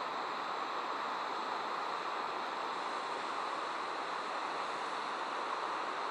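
Waterfall cascading down a wide rock face, a steady, even rush of falling water.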